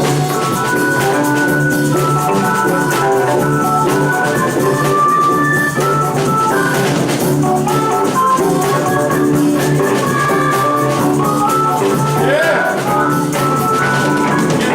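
Band music: an organ carries held notes and chords over a drum kit beat, with no singing.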